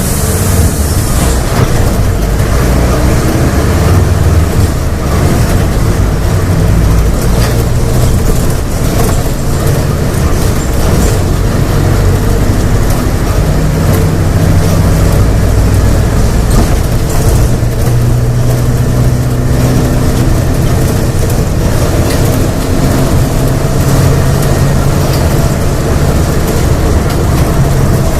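Volksbus 17-230 OD diesel bus engine pulling hard at high revs. The engine note climbs and drops back several times as the bus works through its gears.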